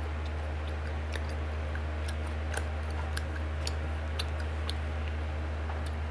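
Eating sounds from a person eating rice and pork curry by hand: scattered soft clicks and smacks of chewing and of fingers working the food on the plate. A steady low hum runs underneath and is louder than the eating.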